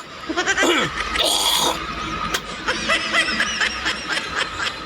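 Snickering and chuckling laughter in short, choppy bursts.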